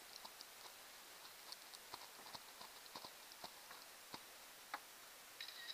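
Light, irregularly spaced clicks and taps from hands handling a phone while holding a small fish, over near silence. A short electronic beep sounds near the end.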